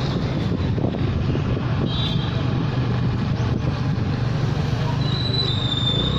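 Steady outdoor noise of heavy rain and motorcycle traffic on a wet road, with wind rumbling on the microphone. A thin, high, wavering tone starts about five seconds in.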